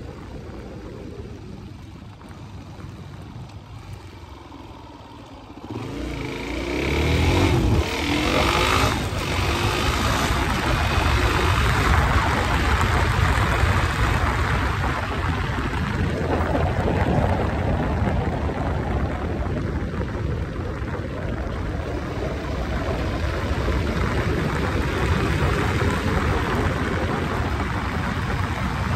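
Motorcycle engine running quietly at low speed, then revving up through the gears about six seconds in. After that it holds a steady cruise under a constant rush of wind on the microphone.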